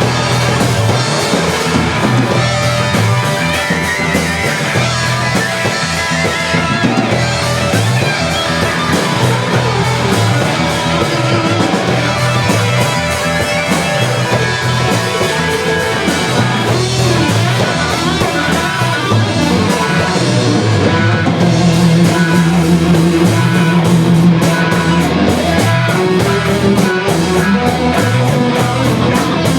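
Live rock band playing an instrumental passage: electric guitar over bass and drum kit, with a steady driving beat.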